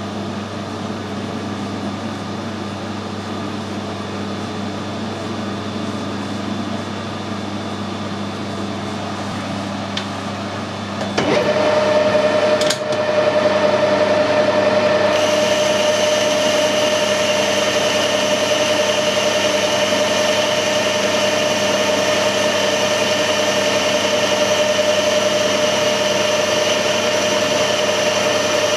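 Metal lathe boring the inside of a bearing housing. A steady machine hum at first, then about eleven seconds in it gets louder as the boring bar starts cutting, with a steady whine. A few seconds later a higher-pitched cutting sound joins in and holds steady.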